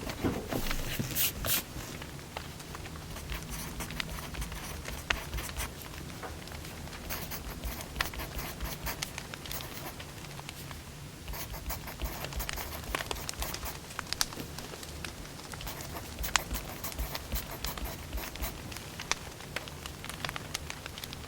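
Firewood burning with irregular sharp crackles and pops over a low, steady rumble of the fire.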